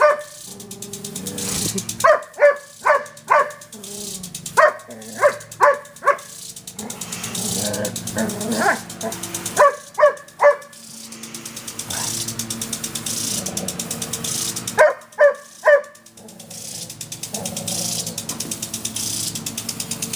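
Irish Setter barking in quick bursts of three or four barks, about five bursts, at a running impact lawn sprinkler. Under and between the bursts the sprinkler ticks fast and steadily, with the hiss of its water jet.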